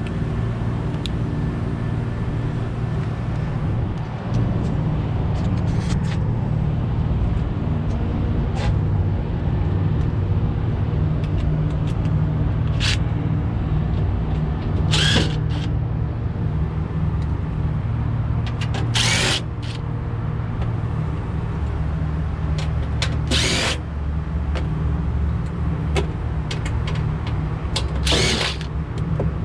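Cordless driver whirring in several short bursts as it runs screws in or out of a metal equipment panel, over a steady low machinery hum.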